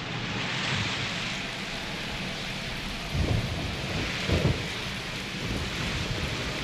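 Heavy rain falling steadily, with two short low rumbles of thunder about three and four and a half seconds in.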